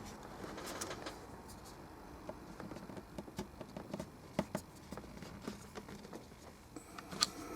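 Plastic casing of a Creative Pebble speaker being pried apart along its seam: irregular small clicks and ticks, with a sharper click near the end.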